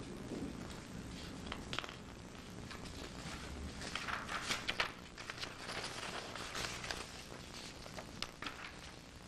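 Faint rustling and small clicks of paper documents being handled and shuffled, busiest in the middle.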